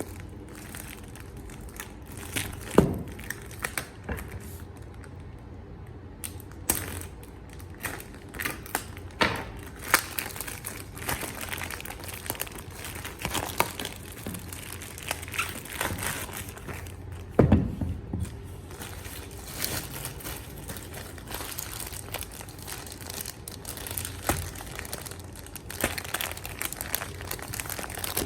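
Packaging crinkling and rustling as it is handled and unwrapped, with irregular crackles and a few louder knocks, the loudest about three seconds in and again past the middle.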